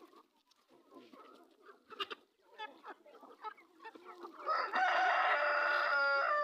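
Chickens clucking, then about four and a half seconds in a rooster crows loudly in one long call that drops in pitch at its end.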